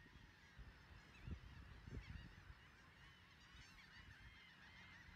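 Faint, dense chorus of a large flock of gulls calling, many short overlapping calls at once. A couple of soft low thumps come about one and two seconds in.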